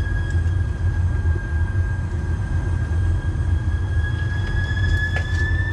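Electric sightseeing cart driving along, its drive motor giving a steady high whine over a low rumble; the whine rises slightly in pitch near the end.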